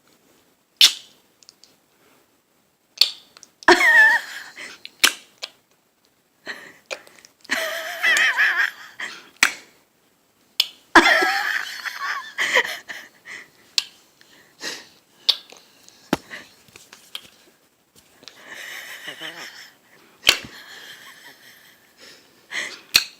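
Mother and eight-month-old baby trading funny vocal noises: several short bursts of wavering, squeal-like voice with sharp mouth clicks and smacks between.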